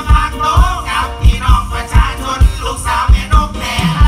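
Live band music with a heavy, steady kick-drum beat about twice a second and voices singing over it through a stage sound system.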